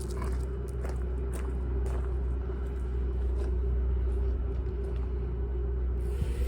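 Wind rumbling on the microphone over the steady hum of a small toy drone's motors and propellers.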